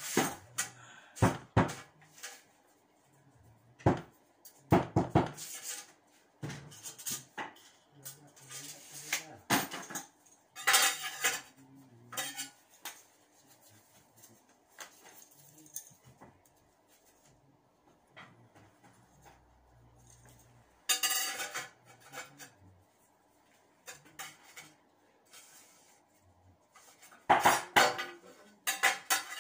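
Irregular clinks, knocks and clatter of hard objects being handled and set down: ceramic tiles and hand tools knocking together, with quieter scraping between.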